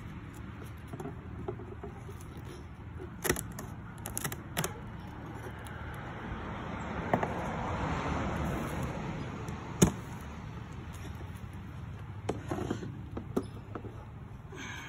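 Sharp knocks and clinks of wooden and metal hive parts being handled as a beehive is opened, a few single strokes spread out, with a cluster of small clicks near the end. Under them a steady low hum, and a broad rushing sound that swells and fades in the middle.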